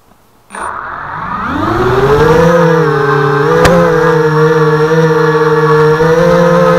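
The brushless motors and propellers of a HobbyKing FPV250 quadcopter spin up from rest about half a second in: a loud whine rising in pitch that settles into a steady buzzing drone as the quad lifts off, heard close up from its onboard camera. A single sharp click about three and a half seconds in.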